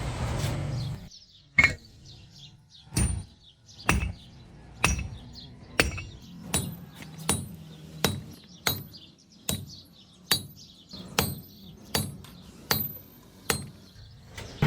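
Hand hammer striking iron on an anvil in a steady forging rhythm: about fifteen ringing blows, roughly one a second and quickening slightly. A steady noise dies away about a second in.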